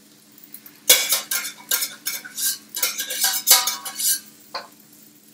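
A metal utensil scraping and clattering against metal pans in a quick run of strokes, starting about a second in and lasting about three seconds, with one last knock near the end.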